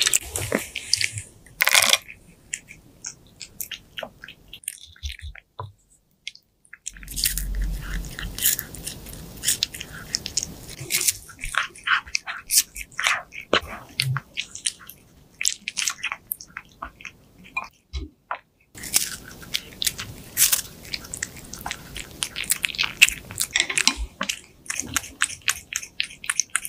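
Exotic Shorthair cat chewing and biting milk-soaked freeze-dried meat patties, close up: quick crisp crunches and clicks in irregular runs. The chewing breaks off twice, for about a second or two each time.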